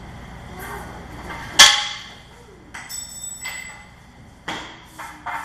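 Bed-frame assembly: a sharp metallic clank with a brief ringing after it about a second and a half in, then a few lighter knocks and taps near the end, from tools and hardware being worked on the wooden bed frame and its slats.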